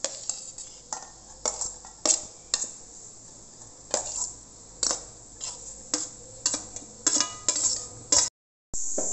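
Steel spoon scraping and clinking against a stainless steel plate and bowl, pushing chopped onion, tomato and herbs off the plate: a run of irregular sharp scrapes and taps. It cuts off suddenly near the end.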